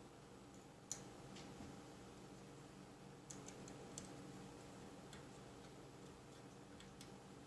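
Faint, scattered light clicks of small metal screws being started by hand into a clamp-on shotgun rail mount, a few separate ticks several seconds apart over near silence.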